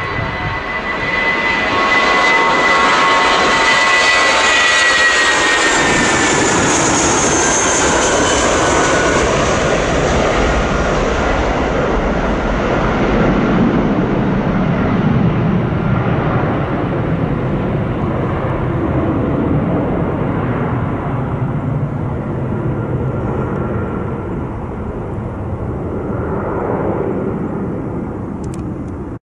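Airbus A320-232's IAE V2500 jet engines at takeoff power: loud engine noise with a high whine that drops a little in pitch as the aircraft passes. The sound then turns deeper and slowly fades as it climbs away, and cuts off suddenly at the end.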